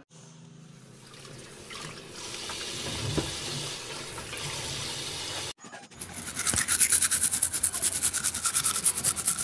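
Tap water running into a basin while peeled cassava roots are rubbed and washed by hand. About halfway through it cuts to cassava being grated on a flat metal hand grater, a run of quick, even scraping strokes that is the loudest part.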